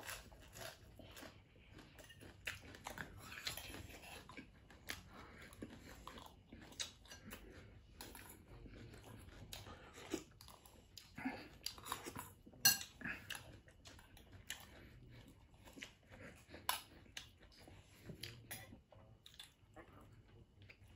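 Quiet close-up eating sounds: chewing, with scattered clicks and taps of metal spoons against bowls, the sharpest tap about twelve and a half seconds in.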